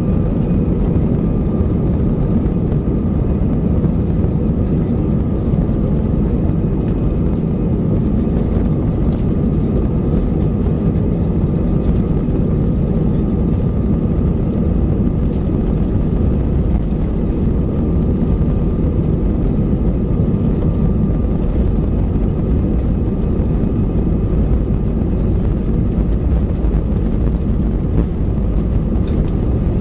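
Steady jet-engine rumble of an Airbus A320 rolling on the ground, heard inside the cabin, with a thin steady whine above it and no build-up in power.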